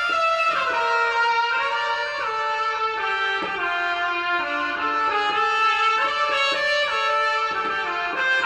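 Roland XPS-10 keyboard playing a melodic line on a sampled brass- or string-like lead tone. It moves between held notes with a few sliding pitch bends.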